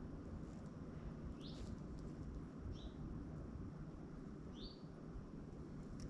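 A small songbird chirping: three short, high chirps spaced a second or two apart, over a steady low background rumble.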